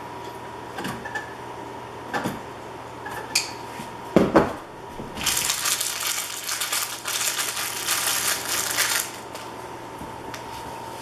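A few light clicks and a sharp knock from pliers and wire ends. About five seconds in comes roughly four seconds of dense, scratchy crackling as stranded-free copper house wires are twisted together with pliers into a splice.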